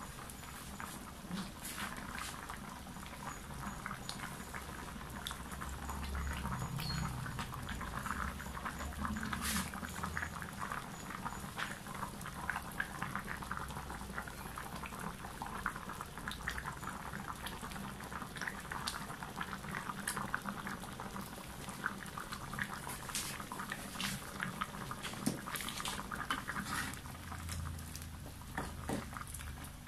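Chicken and potato curry in coconut milk simmering in a wide aluminium wok, bubbling with a steady stream of small pops.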